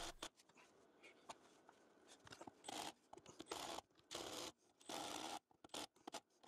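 Faint, intermittent scraping and clicking of hand-work on metal as aluminium L-channel stiffeners are fitted and bolted to the back of a CNC machine's frame. The scrapes come in a loose run of short strokes of about half a second each, from about the middle on.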